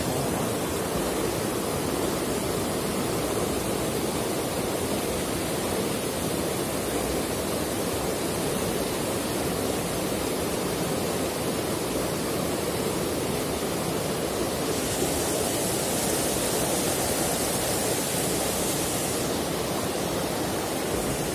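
Shallow rocky river rushing over stones in small rapids: a steady, even rush of water.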